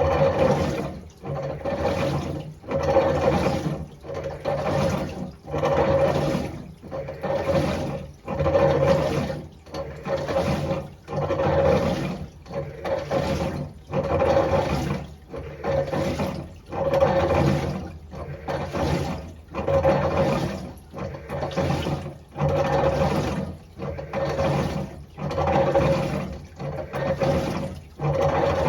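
Failing washing machine agitating a wash load, surging in even strokes about once a second with water churning, and loud grinding and rattling ("ga-ga, gata-gata") on each stroke: noise bad enough that the owner is replacing the machine.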